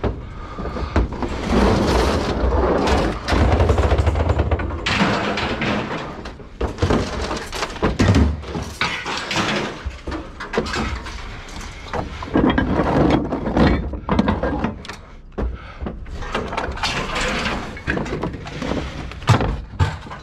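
Scrap metal being unloaded by hand, with repeated clanks and thuds as pieces are thrown down and strike each other.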